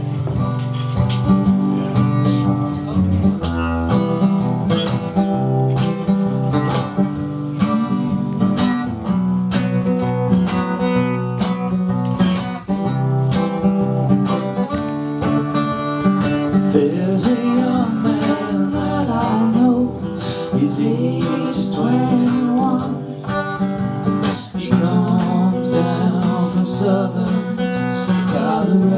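Live acoustic folk-country music: a strummed acoustic guitar with hand-drum beats, and singing voices joining in places.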